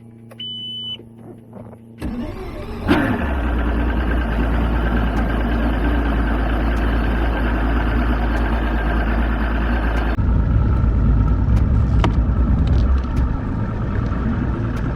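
Boat's outboard motor idling with a short electronic beep, then opened up about two seconds in and running under way with a steady drone and rushing water and wind noise. The higher rushing eases near the ten-second mark.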